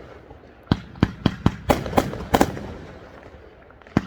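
Fireworks bursting: a rapid string of about eight sharp bangs starting just under a second in, each trailing off in a rolling echo, then one more bang near the end.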